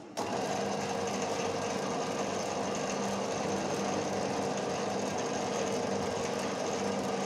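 Metalworking lathe switching on abruptly just after the start, then running steadily with a constant hum.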